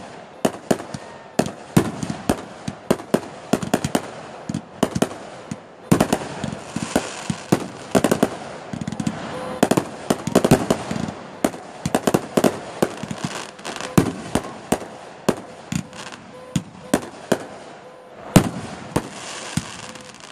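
Aerial fireworks bursting in quick succession: a rapid run of sharp bangs and pops, several a second, over continuous crackling.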